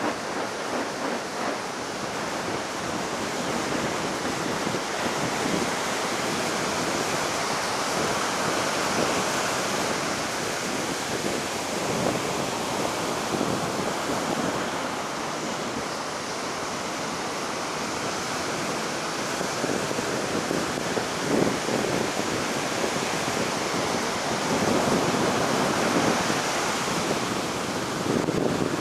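Heavy ocean surf breaking on a sandy beach in a steady wash of noise that swells and eases every few seconds. The waves are high after a typhoon.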